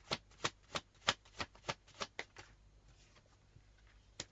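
A deck of tarot cards being shuffled by hand: a quick run of crisp card snaps, about three a second, for roughly two and a half seconds, then a pause and one last snap near the end.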